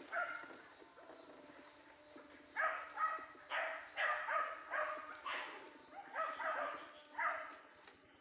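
Hunting dog barking in a quick series of short barks, about two a second, starting about two and a half seconds in, over a steady high insect drone.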